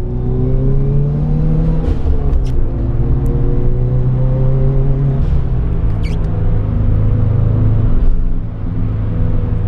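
Car engine heard from inside the cabin while driving, its note climbing and then dropping about two seconds in, then running fairly steadily.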